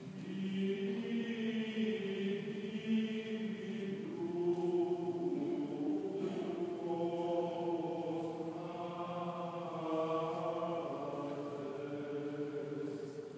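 Sung liturgical chant during Mass: voices holding long notes that step slowly from pitch to pitch.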